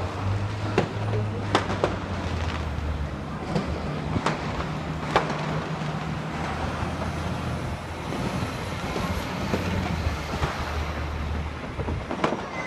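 Fireworks going off: sharp bangs, several in the first five seconds and another near the end. Under them runs a steady low rumble of traffic engines.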